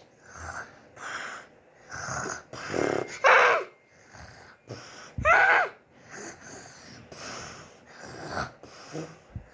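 A girl imitating snoring: a string of breathy snores and snorts about once a second, broken twice by a sudden gasping cry that falls in pitch, acted as a sleeper snoring fitfully and startling.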